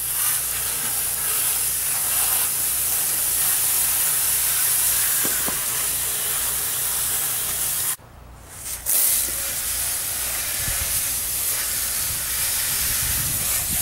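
Water jets from a garden-hose-fed PVC-pipe undercarriage washer spraying steadily up against the underside of lawn mowers, an even hiss that drops away briefly a little past halfway.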